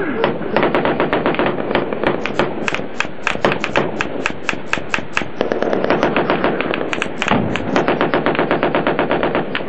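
Automatic gunfire in rapid, continuous strings of many shots a second, from rifles and machine guns firing back at enemy positions.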